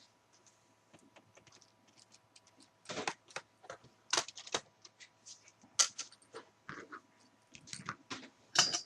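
Irregular sharp clicks and taps of hard plastic laptop case parts being handled as the HP DV6000's memory cover is taken off, with louder clusters about three, four, six and eight seconds in.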